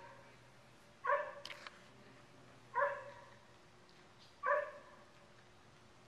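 A dog barking three times, evenly spaced about a second and a half apart.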